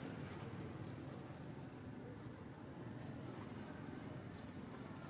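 Insect buzzing in two short high-pitched trills, each about half a second long, about three and four and a half seconds in, over a low steady outdoor background; a faint high chirp about a second in.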